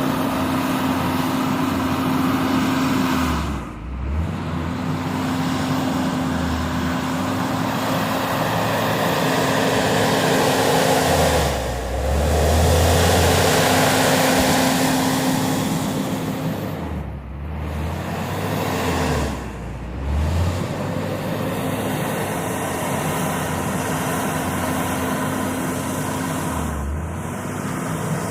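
JCB 426ZX wheel loader's diesel engine running hard under load while it works, its steady note dipping briefly in speed four or five times.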